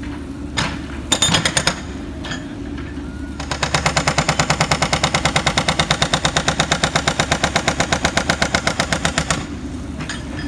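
Jackhammer breaking up material: a short burst about a second in, then a long run of rapid, even blows lasting about six seconds that stops abruptly.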